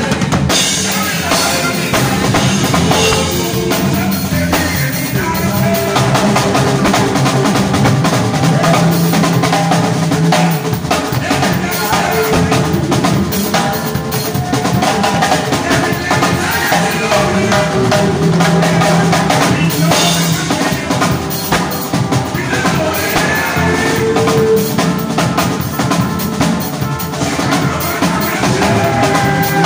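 Drum kit played close up within a live band: kick drum, snare and cymbals over the band's held bass and instrument notes.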